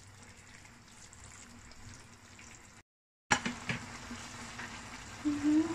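Chicken and dried-mushroom braise simmering in a wok, the sauce bubbling with a soft steady sizzle. A brief cut to dead silence comes about three seconds in, followed by a couple of sharp clicks.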